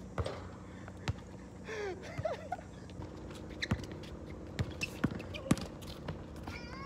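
A basketball being dribbled on an outdoor asphalt court, with sharp, irregular bounces. There are a few short high squeaks about two seconds in.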